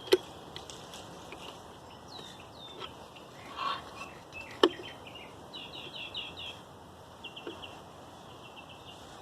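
Birds chirping in short repeated series in the background, with two sharp clicks, one at the start and one about four and a half seconds in.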